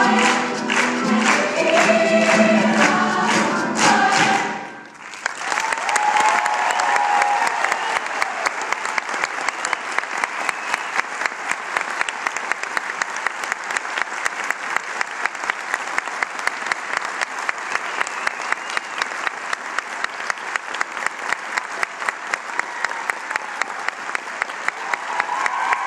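Choir of young women singing an upbeat song, clapping in time as they sing. The song ends about five seconds in, and audience applause follows, with steady claps close by at about three a second.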